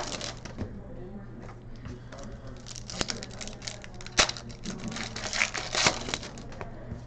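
Plastic trading-card pack wrappers being torn and crinkled open by hand: irregular crackling and tearing with a few sharp louder rips. The packs are stubborn to open.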